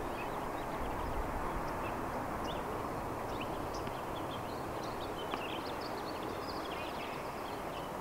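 Outdoor ambience: a steady wash of low noise with scattered short, high chirps throughout.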